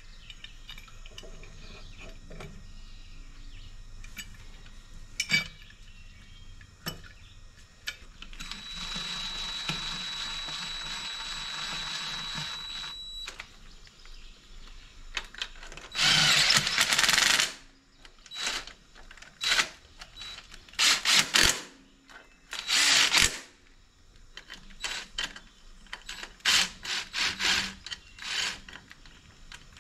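Small metal clinks of parts being handled, then a cordless power drill running in several short bursts of about a second each as it drives the bolts of the oil filter housing cap. Earlier, a steady whirring with a thin high whine lasts about five seconds.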